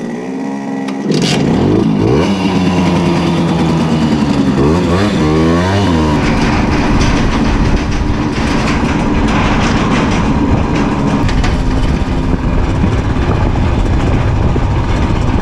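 Simson S51 moped's single-cylinder two-stroke engine heard from on board, picking up about a second in and revving up and down twice in the first few seconds, then running steadily at riding speed.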